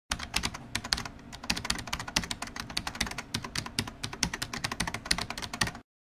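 Computer keyboard typing: a fast, irregular run of key clicks that cuts off abruptly shortly before the end.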